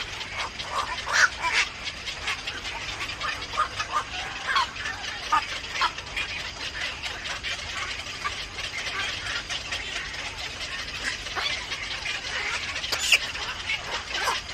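Birds chirping with many short, scattered calls, and louder calls about a second in and near the end, over a steady background hiss.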